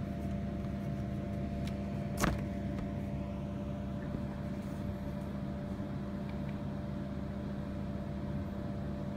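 DF11 (Dongfeng 11) diesel locomotive engine sound played by a LokSound v4 model-train sound decoder through a woofer speaker, running steadily with a constant low hum. A single knock about two seconds in.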